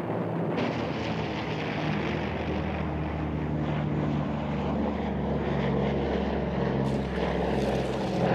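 Propeller aircraft's piston engines running steadily in flight: an even, low drone with rushing air noise over it.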